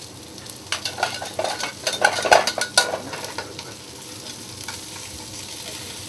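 Lightly floured halibut pieces frying in a very hot sauté pan with a steady sizzle, while metal tongs turn them, clicking and scraping against the pan in a quick flurry between about one and three seconds in.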